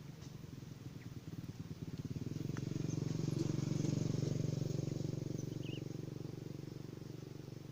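A small engine's low, fast-pulsing drone swells to its loudest about halfway through and then fades.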